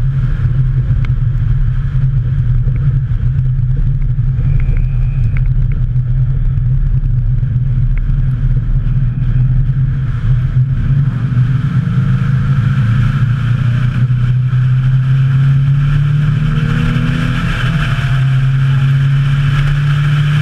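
Nissan 350Z's 3.5-litre V6 engine running steadily, its note climbing a little and growing stronger in the second half.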